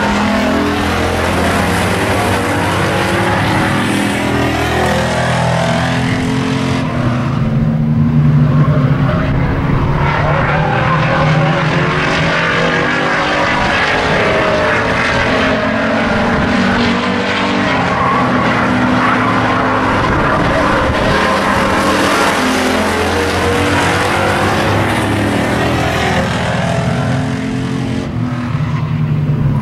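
Several hobby stock race cars running at racing speed on an oval track, their engines revving up and down as they pass and work through the corners.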